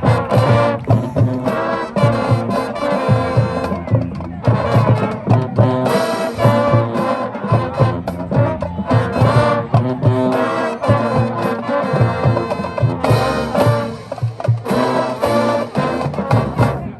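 High school marching band playing: brass section with a steady drum-line beat.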